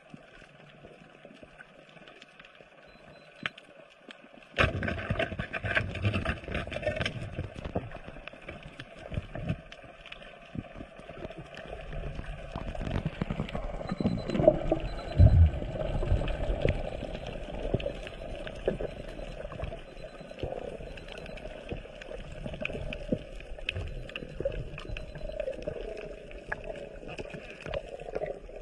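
Muffled underwater water noise picked up by a camera beneath the surface: irregular sloshing and bubbling with small clicks. It is faint at first and turns suddenly louder a few seconds in.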